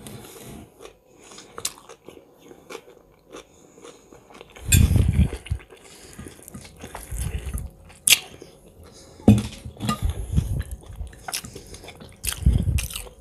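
Close-miked chewing and biting of food, with irregular crunches, wet mouth sounds and sharp clicks. Louder bursts of chewing come about five seconds in, again around nine to ten seconds, and near the end.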